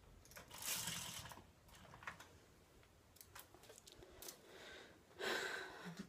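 Handling and movement noise: two brief bursts of rustling, about half a second in and again about five seconds in, with a few light clicks in between.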